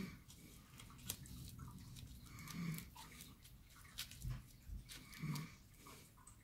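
Aluminium foil crinkling and crackling as it is pressed and wrapped by hand around a glass jar, with sharp ticks about one and four seconds in. Two short low sounds stand out about two and a half and five seconds in.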